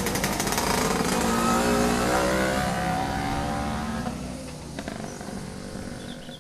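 A motor vehicle engine accelerating, its pitch rising over the first couple of seconds and then fading away.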